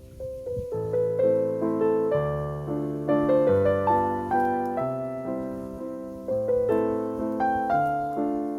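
Background solo piano music: notes struck one after another, each ringing and fading, over low bass notes that change about once a second.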